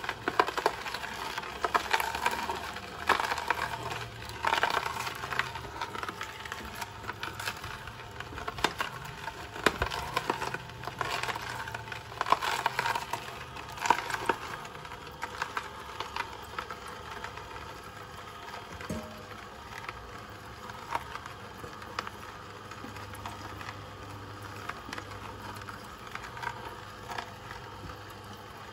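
Kuvings C7000 whole slow juicer's auger crushing whole carrots and beetroot: irregular cracking and snapping over a low, steady motor hum. The cracks come thick and fast at first and thin out after about halfway, as the hopper's load is ground down.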